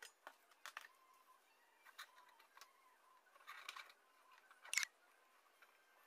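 Faint handling noise of a circuit board and soldering tools on a wooden workbench: a few light clicks and taps with brief rustles, and one sharper click a little before the 5-second mark.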